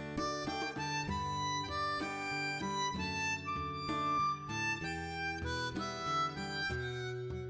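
Instrumental background music: a melody of held notes, changing about every half second, over sustained chords.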